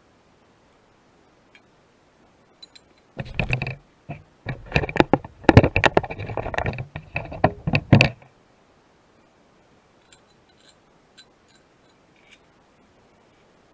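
A burst of close clattering knocks and scraping lasting about five seconds, starting about three seconds in, with a brief pause partway through, then only a few faint ticks.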